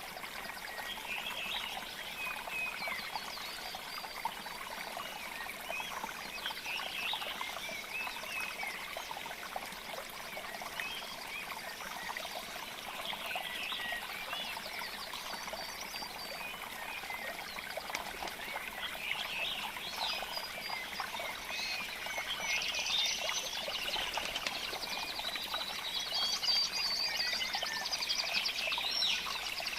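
Wild birds chirping and trilling over a steady trickling, water-like hiss; the birdsong grows busier and louder after about twenty seconds.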